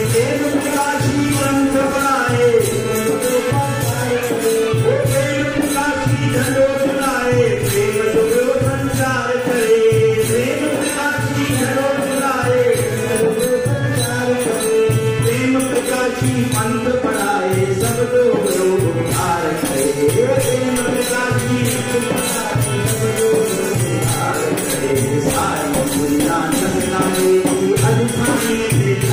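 Devotional bhajan music: a harmonium melody over a steady low drum beat, about one beat a second.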